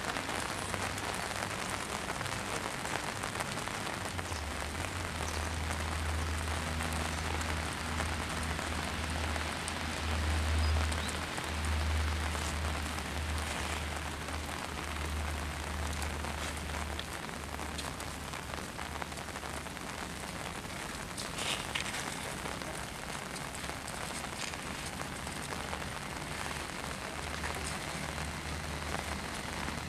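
Steady rain falling on wet paving, an even hiss. A low rumble comes and goes underneath, strongest from about four to seventeen seconds in.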